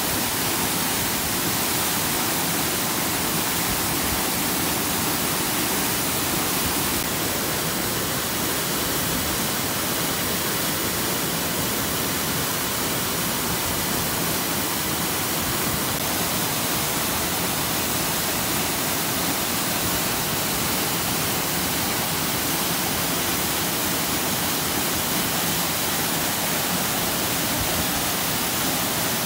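Himalayan mountain stream rushing: a steady, unbroken hiss of fast-flowing water.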